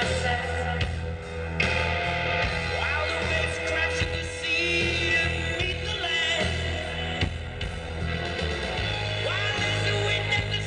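Bass-heavy dance music with a singing voice, played loud through a sonidero's PA sound system.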